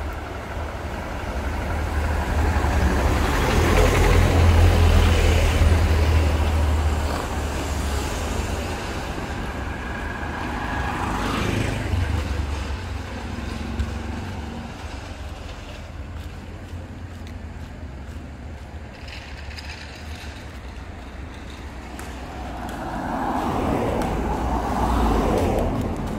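Busy road traffic: a steady rumble of engines and tyres, with vehicles passing close by one after another. The loudest pass is about five seconds in, with others near twelve seconds and near the end.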